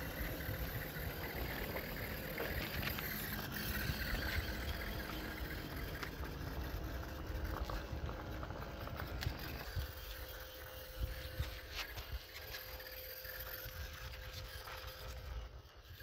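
Small electric gear motor of a homemade RC chassis running as its rubber tyres roll over concrete, with scattered small clicks. A low rumble eases about ten seconds in and a thin steady whine holds from then on.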